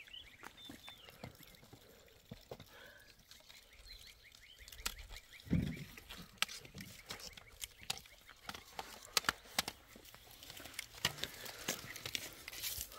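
Scattered light knocks and clicks from someone handling the small metal-framed hatch of a concrete animal shelter, with one dull thump about five and a half seconds in. The clicks come thicker in the last few seconds.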